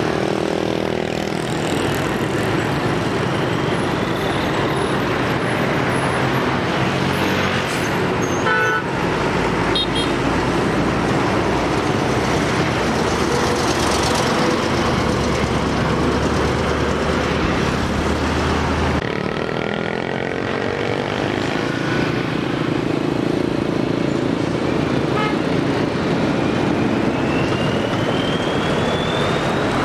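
Heavy road traffic: diesel container lorries and motorbikes passing close by with engines running, and short horn toots.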